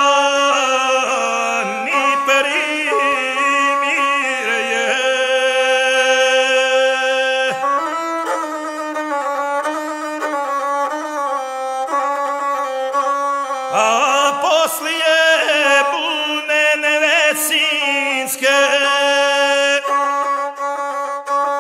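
Gusle, the single-string bowed folk fiddle of epic singing, playing an instrumental interlude between sung verses: a wavering melody of held notes and quick trilling ornaments.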